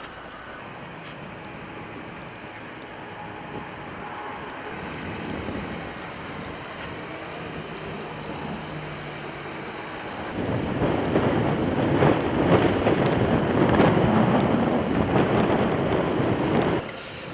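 Emergency vehicles driving across a snowy apron: a steady engine hum and road noise, then a much louder rushing noise about ten seconds in as a van passes close by, cut off abruptly near the end.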